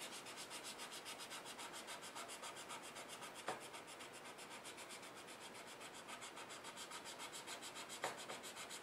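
Felt tip of a colorless blender marker rubbing back and forth over colored-pencil layers on paper, a faint scrubbing in a quick, even rhythm of about five strokes a second. A light tick comes about three and a half seconds in and another near the end.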